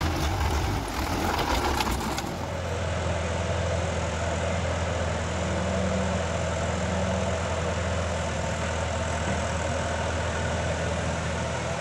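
Sonalika diesel tractor engine idling, mixed with the engine of a CAT hydraulic excavator at work. The sound shifts about two seconds in, then holds steady.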